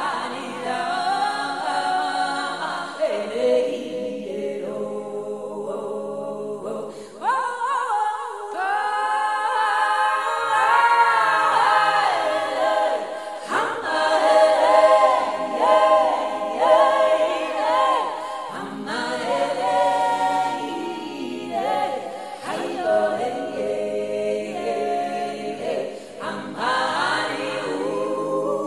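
Background music: a choir singing unaccompanied, several voices in harmony with wavering held notes.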